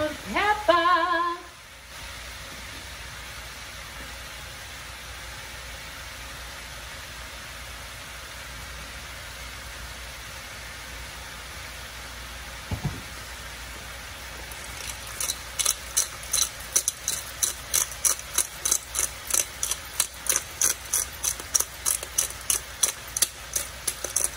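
Hand-twisted pepper grinder bottle grinding over a pan, a rapid run of sharp rasping clicks about three a second starting about two-thirds of the way through. Before it, food sizzles faintly in the wok, with a single knock about halfway.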